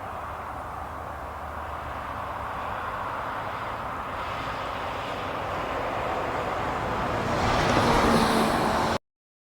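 Road vehicle noise growing steadily louder, loudest near the end, then the sound cuts off abruptly.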